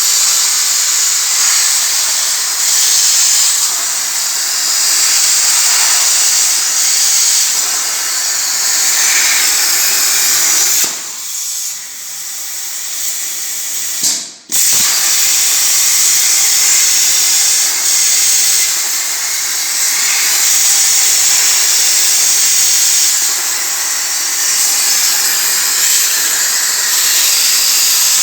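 CNC plasma cutting table's plasma torch cutting sheet metal: a loud, steady hiss. The hiss drops about eleven seconds in, cuts off briefly about three seconds later and then starts again at full strength.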